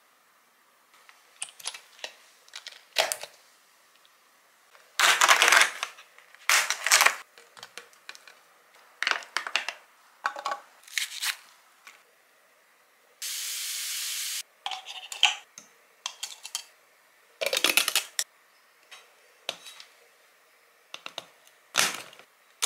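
Food-prep handling sounds: scattered clicks, knocks and rustles as ingredients go into a plastic chopper cup and utensils are handled. A steady hiss lasts about a second in the middle, and there is a click near the end as a hand blender is fitted onto the chopper.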